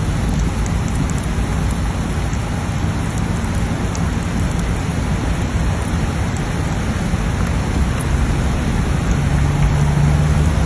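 Heavy rain pouring down, a loud, even rushing hiss. A low steady hum joins in near the end.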